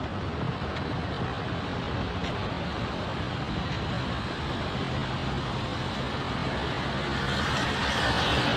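Road vehicle traffic: a steady engine rumble with road noise, growing louder and hissier near the end as a vehicle comes close.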